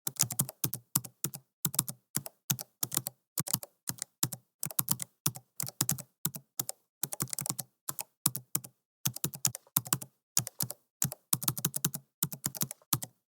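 Slow typing on a computer keyboard: irregular clusters of key clicks, a few keystrokes at a time, with short gaps between them.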